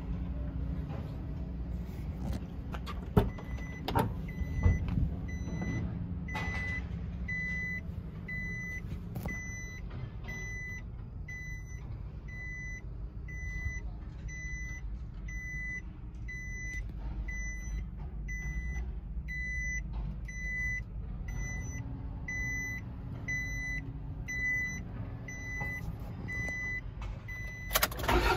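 Isuzu ELF truck's in-cab electronic warning beeper sounding repeatedly, about three short beeps every two seconds, starting several seconds in and stopping just before the end. A few sharp knocks from the cab door come before it, over a low steady rumble.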